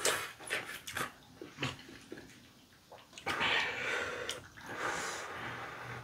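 Eating sounds: a few small chewing smacks and chopstick clicks, then from about three seconds in a long, noisy hiss of breath drawn and blown through the mouth against the burn of very spicy tteokbokki.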